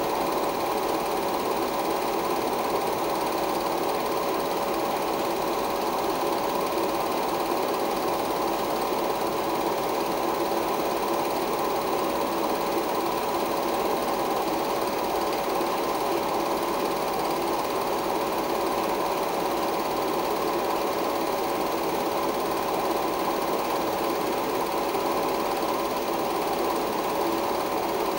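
16mm film projector running steadily, with a constant hum in its sound.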